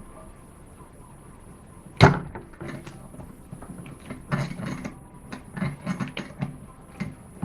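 Metal hand tools being handled, most likely while he gets a 10mm spanner or socket onto the nut: one sharp knock about two seconds in, then a run of lighter clicks and clanks.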